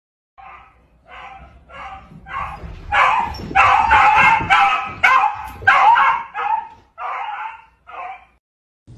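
Dog yelping and whining in a rapid series of about a dozen short cries, louder in the middle and trailing off near the end.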